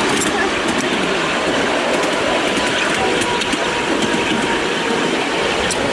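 Miniature railway train running along the track behind a miniature BR Class 37 locomotive, heard from a passenger car: a steady running rumble of the wheels with scattered clicks from the rail joints, and a faint thin squeal near the middle.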